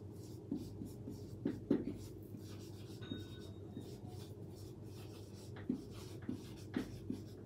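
Marker pen writing on a whiteboard: a run of short, irregular strokes as a word is written, fairly quiet.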